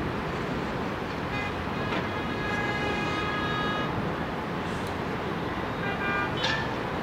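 A horn sounds steadily for about two and a half seconds, starting about a second in, and again briefly near the end, over the steady rumble of a passing train and city traffic.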